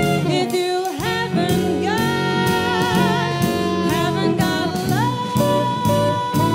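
Intro theme music: a melody of long held notes, each sliding up into its pitch, over a bass line and a steady beat.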